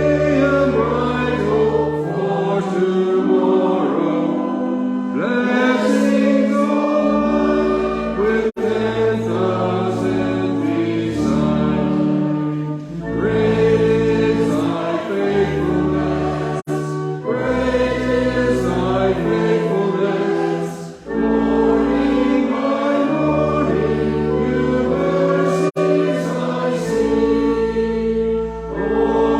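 A hymn sung by many voices in chorus, with held chords and bass notes underneath.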